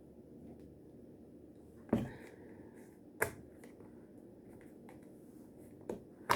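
A few sharp taps and knocks of kitchen handling, as dishes and utensils are moved while a salad is assembled: the first about two seconds in, another a second later, and two close together near the end, over quiet room tone.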